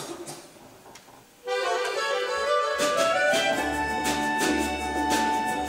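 A student tuna ensemble starts a serenade. An accordion comes in about a second and a half in with held notes stepping upward. Then guitars and mandolins strum a steady rhythm, with a double bass underneath.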